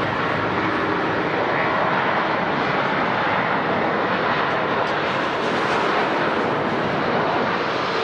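Jet airliner engines running, a loud, steady rush of noise with faint whining tones.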